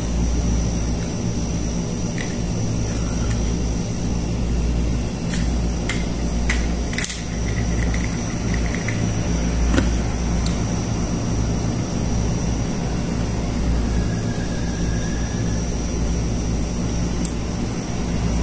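Steady low machine hum under a scattering of light clicks and knocks from a telescopic fishing rod being handled. Most of the clicks come in the middle, with one more near the end.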